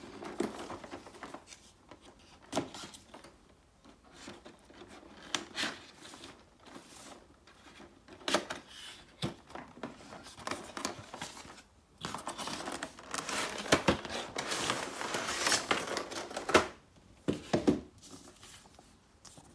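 Figure box being cut and unpacked by hand: a utility knife slitting the tape seals, cardboard flaps opening, and a clear plastic blister tray crinkling and scraping as it slides out. The sound is scattered clicks and short scrapes, with a busier stretch of rustling and crinkling past the middle.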